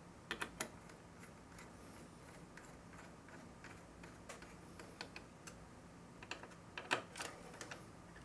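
Faint, scattered small clicks and ticks of CPU cooler mounting hardware as the mounting screws are turned into the cooler's nuts, with a few louder clicks about half a second in and around seven seconds in.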